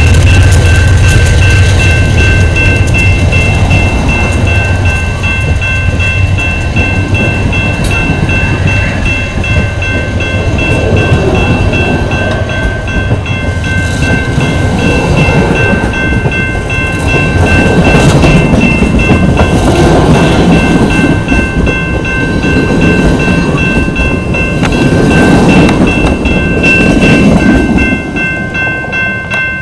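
Amtrak Superliner bilevel passenger cars rolling past close by, with their wheels rumbling and clattering on the rails. The rumble drops away suddenly near the end as the last car passes. A steady, evenly repeating high ringing, the grade-crossing bell, runs under it all.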